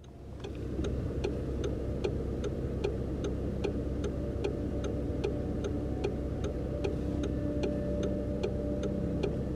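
Steady, even ticking, about two and a half ticks a second, over a low rumble, with a few held tones coming in partway through.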